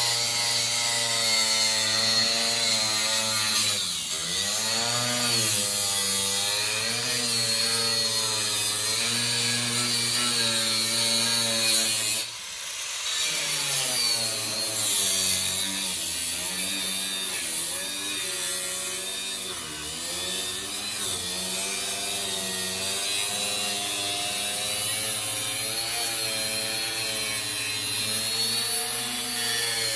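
A handheld cutoff grinder cutting into a 1968 Firebird's body, its motor pitch dipping and recovering over and over as the wheel bites and is eased off. The panel is fiberglass and Bondo filler rather than steel. The tool stops briefly about twelve seconds in, then runs again.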